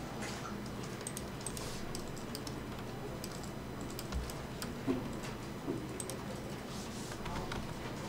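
Irregular, scattered clicks of a computer keyboard and mouse, over faint steady background noise.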